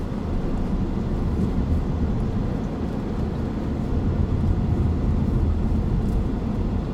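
Car's engine and tyre noise heard from inside the cabin while driving, a steady low rumble.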